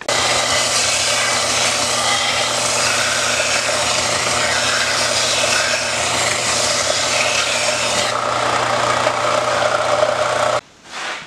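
Electric grinder sanding down the wooden handle scales of a hand-forged sword: a steady motor hum under a loud rasping of wood being ground away. It starts suddenly and cuts off shortly before the end.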